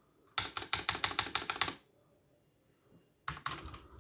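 Typing on a mechanical keyboard with Outemu Red linear switches: a fast run of keystrokes, a pause of about a second and a half, then typing starts again near the end.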